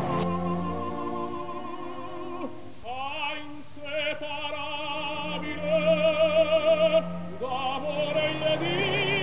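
Background music with a singing voice, holding a long note with a wide vibrato about halfway through.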